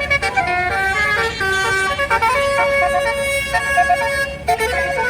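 Bus 'basuri' telolet musical air horn playing a tune: a run of held notes stepping up and down in pitch, over low traffic rumble.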